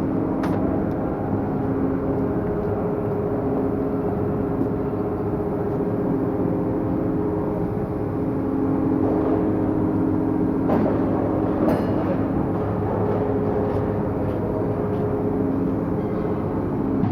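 Akasaka AX31R marine main diesel engine running steadily at a held speed on the test bed, with a few brief metallic clicks about eleven seconds in.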